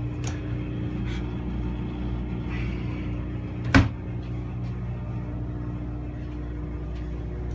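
Steady low hum of running machinery inside the clinic van, with a single sharp knock about four seconds in from a closet door being shut.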